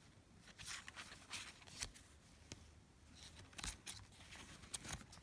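Faint rustling of cardboard hang tags being flipped and handled by hand, with scattered soft ticks and clicks.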